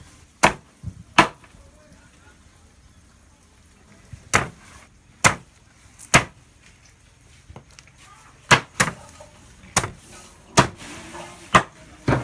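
Large cleaver chopping whole fish into pieces on a wooden plank table: about a dozen sharp chops at uneven intervals, each blade striking through the fish into the wood.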